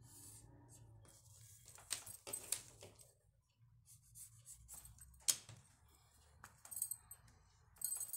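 Faint rustling and tapping of a newspaper pattern sheet as it is marked with a pen, in short scattered bursts with a few sharper clicks.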